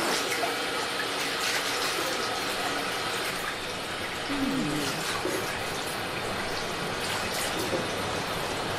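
Shallow stream water running over rock, with hands splashing in it as raw chicken pieces are rinsed.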